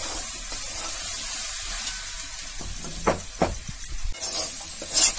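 Jute leaves and chana dal frying in oil in a metal kadai: a steady sizzle, with a spatula stirring and scraping across the pan twice about three seconds in.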